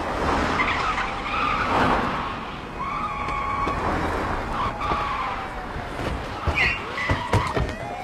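Cars, police cars among them, pulling up fast and braking with tires squealing, while a siren wails up and down. There is a run of sharp knocks near the end.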